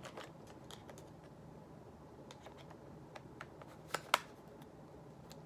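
Light plastic clicks and taps from handling a Polaroid camera, with two sharper snaps about four seconds in as its battery cover is fitted back on.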